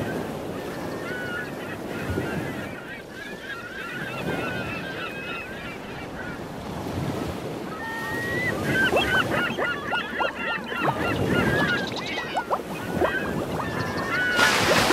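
A flock of birds calling on a seashore, many short calls that come thickest in the second half, over the steady wash of waves and wind. A louder rush of surf comes near the end.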